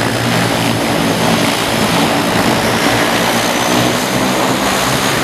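Propeller plane's engine running: a steady, loud drone with a rushing noise. Its low hum eases about half a second in.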